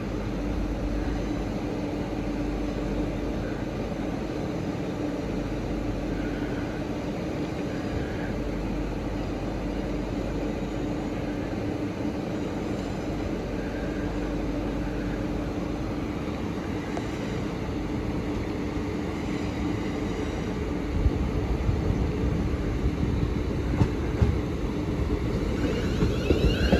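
A standing electric multiple unit hums steadily at the platform. From about two-thirds of the way in, a two-unit Class 350 Desiro electric multiple unit draws in alongside, with growing wheel clatter and knocks over the track and a traction whine near the end.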